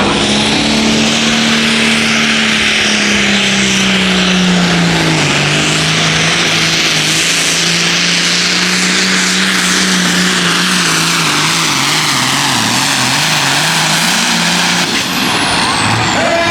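A 466-class hot farm pulling tractor's diesel engine runs at full throttle under the sled's load, its pitch slowly sinking and wavering as the load builds. It cuts back about fifteen seconds in, with a high whine sliding down as it unwinds.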